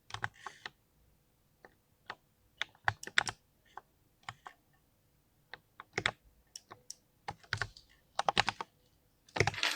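Typing on a mechanical keyboard with linear switches: irregular clusters of keystrokes with short pauses between them, ending in a fast, dense flurry of keys.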